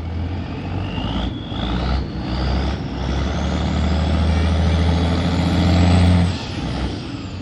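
Tugboat's diesel engine throttled up under load while towing, with a high whine climbing steadily in pitch for about six seconds. Near the end the engine suddenly drops back and the whine falls away.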